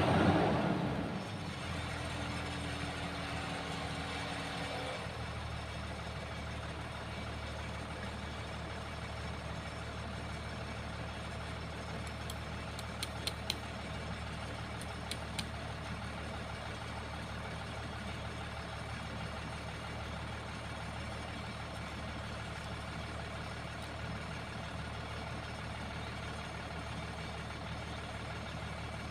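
Excavator's diesel engine winding down from high revs about a second in, then idling steadily; a few sharp clicks midway.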